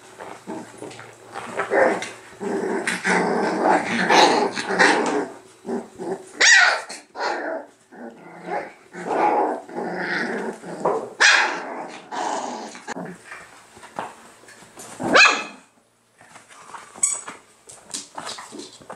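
Whippet puppies play-fighting, growling and yapping in a long, busy run, broken by a few sharp high yelps; the noise dies down near the end.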